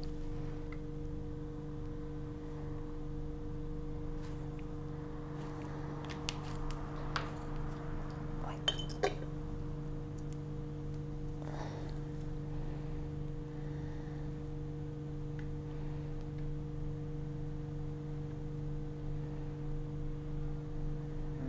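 Light plastic clicks and taps of PCR tubes being handled and set into a plastic tube rack, a handful of them around the middle, over a steady low hum.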